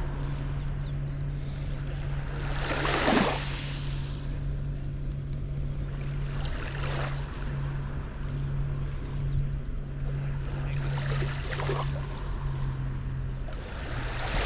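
Small waves lapping on a sandy beach, one soft wash every four seconds or so, over a steady low hum.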